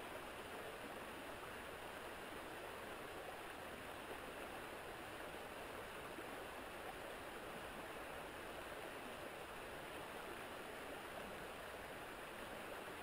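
Shallow, stony river flowing past, a steady rush of water with no breaks.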